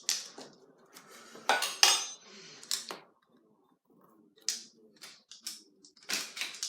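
Measuring tablespoon clinking and scraping against a mug and container while scooping cocoa powder: a string of irregular sharp clinks and short scrapes, with a brief pause midway.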